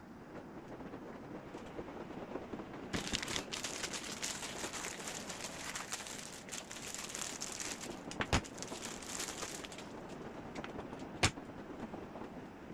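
Plastic wrapping crinkling and rustling as a model airplane is handled, densest in the middle, with two sharp clicks near the end.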